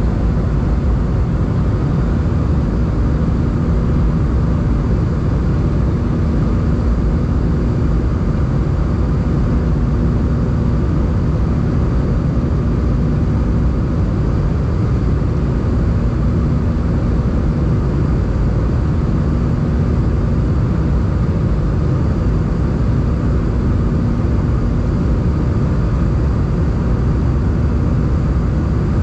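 Steady in-flight cabin noise of an Airbus A320, heard from a seat beside the wing: the engines' low drone and the rush of air, with a faint steady hum.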